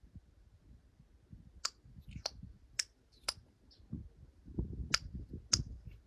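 Chewing gum being popped and snapped in the mouth: about six sharp crackling pops at irregular intervals, over a low rumble.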